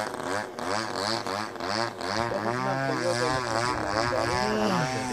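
DLE-20 single-cylinder two-stroke gas engine of an RC aerobatic model plane in flight, its pitch swinging up and down about twice a second as the plane manoeuvres.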